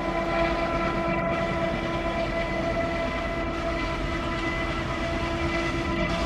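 ALCO WDM-3D diesel locomotive's 16-cylinder ALCO 251 engine running under load, its turbocharger giving a steady high-pitched whistle over the rough chugging exhaust.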